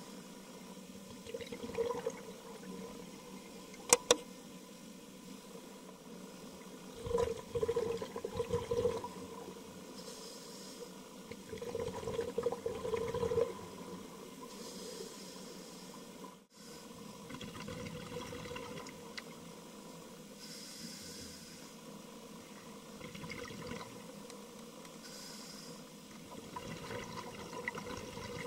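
A scuba diver breathing through a regulator underwater: hissing inhalations alternate with louder bubbling exhalations, about one breath every five seconds. A single sharp click comes about four seconds in.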